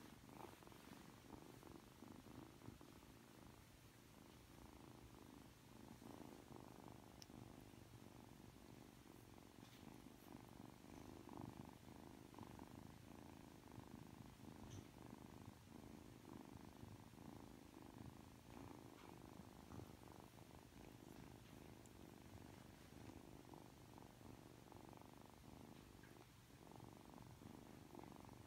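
A three-month-old Ragdoll kitten purring quietly and steadily while being stroked.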